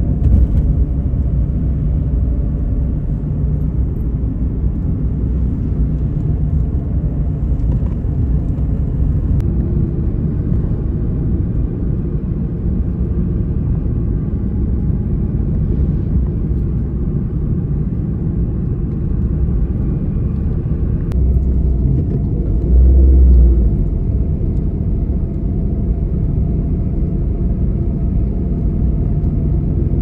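Steady low roar of a large waterfall's falling water, heavy in the bass, swelling briefly about two-thirds of the way through.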